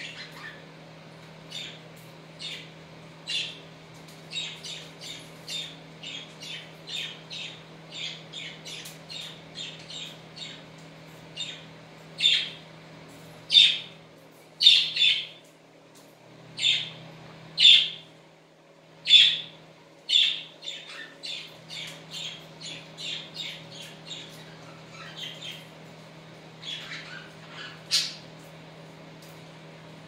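Budgerigars chirping and squawking in quick, short calls, one to three a second, with the loudest squawks in the middle.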